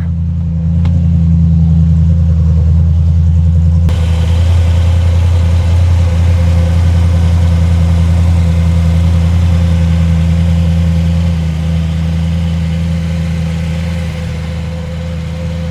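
Audi S5's 4.2-litre V8 idling steadily just after being started on new gaskets, running evenly so far. The sound gets brighter about four seconds in and a little quieter near the end.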